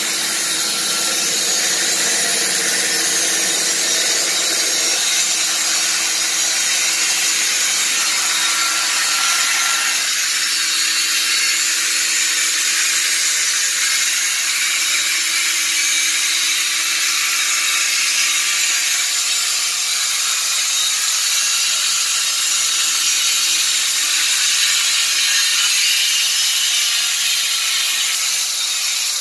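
Electric horizontal band sawmill running and its blade sawing through wood: a loud, steady hiss of the cut with the hum of the drive motor underneath, the hum fading out near the end.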